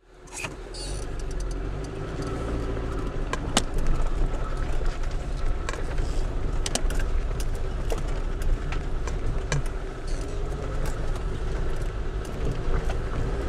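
Car engine running at low speed, heard from inside the cabin, fading in at the start, as the car rolls along a rutted dirt track, with frequent short knocks and rattles over the bumps.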